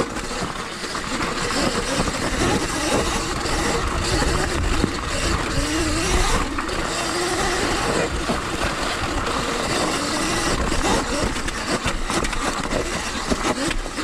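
Sur Ron Light Bee X electric dirt bike being ridden over rocky singletrack: a motor and chain-drive whine that rises and falls with the throttle, over a heavy rumble of wind and ground noise and the knocks of the tyres and suspension hitting rocks.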